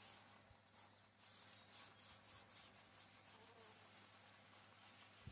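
Faint, repeated swishes of a cloth rubbing furniture oil into a wooden tabletop, about three strokes a second.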